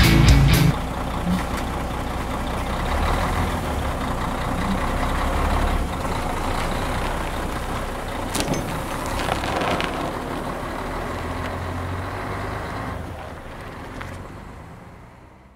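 Heavy truck running, a steady engine rumble with road noise and a few sharp clicks just past halfway, fading out near the end.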